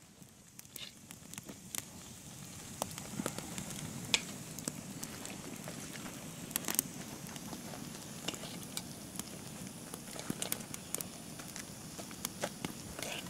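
Wood campfire crackling with scattered sharp pops over a steady hiss. A pot of water is steaming and donuts are frying in a cast iron skillet over the flames.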